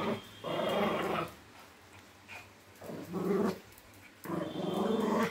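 Pomeranian growling in play while fighting with a toy, in three main rough bouts of about a second each with short pauses between.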